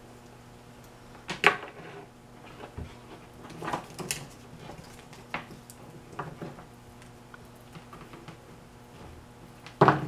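Wiring harness and its plastic connectors being handled and set down on a wooden workbench: a string of sharp clicks and knocks, the loudest about a second and a half in, over a steady low hum.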